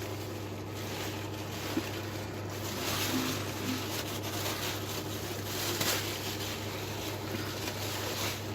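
Soft rustling and handling of a plastic bag as a vacuum cleaner's dust bag is emptied into it, over a steady low hum and hiss.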